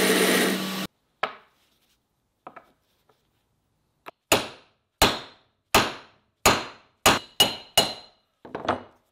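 Belt grinder running, cut off abruptly just under a second in. Then a hammer strikes a small brass piece on a wooden workbench: a couple of light taps, then about seven sharp metallic blows, roughly one a second and coming faster near the end, each ringing briefly.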